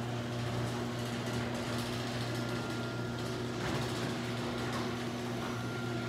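Chain-drive 1/2 HP garage door opener running steadily as it raises a sectional door, a steady motor hum that is pretty quiet for a chain drive.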